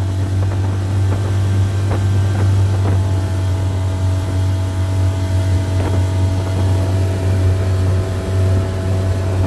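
Dinghy outboard motor running steadily under way, a constant low drone with a steady higher whine over it.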